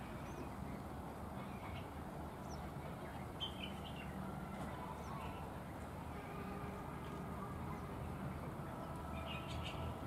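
Bulbuls chirping: short, scattered calls, in small clusters a couple of seconds in, at about three and a half seconds and near the end, over a steady low background hum.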